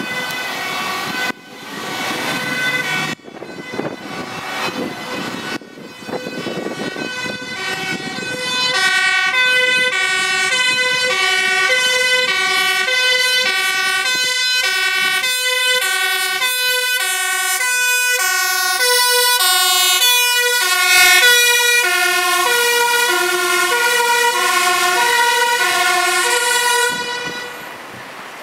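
Fire engine's two-tone siren, a high and a low note alternating about once a second and growing louder as the truck approaches. It cuts off sharply near the end, and there is traffic and road noise at the start.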